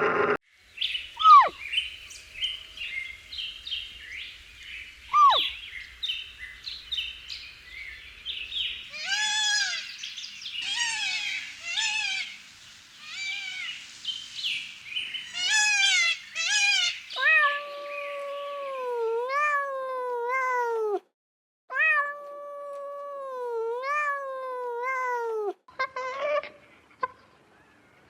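A cat meowing over and over: a run of short, arched meows, then several long, drawn-out, wavering meows. High, rapid chirping fills the first part.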